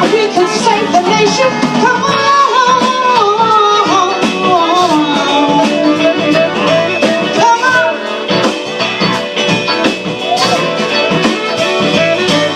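Live band music: a lead melody bending and wavering in pitch over guitar and regular drum hits.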